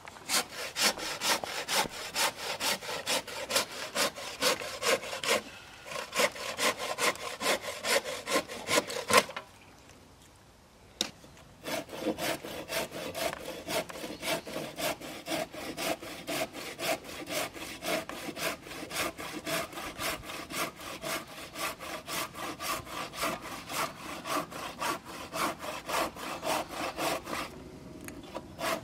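A saw cutting wood by hand, in quick even back-and-forth strokes, about four a second. It stops for about two seconds a third of the way through, then goes on.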